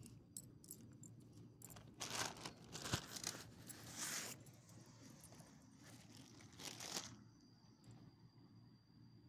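Close crinkling and rustling in two spells, from about two seconds in to past four seconds and again briefly near seven seconds, with a sharp click near three seconds.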